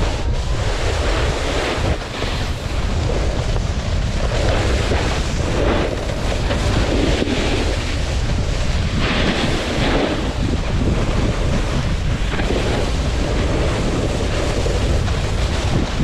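Wind rushing over the camera's microphone while snowboarding downhill, a heavy steady buffeting. Over it, the snowboard's edges scrape across snow in swelling washes that come and go every second or two as the rider turns.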